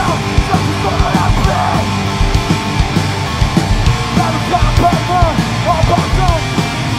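Screamo band playing live: distorted electric guitars and fast, hard-hit drums, with a singer screaming into the microphone.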